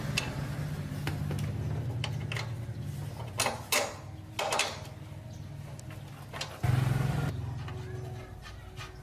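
110cc motorbike engine running at idle with a steady low pulse, a few sharp clicks about halfway through, and a brief louder burst of engine noise about two-thirds in before it settles lower.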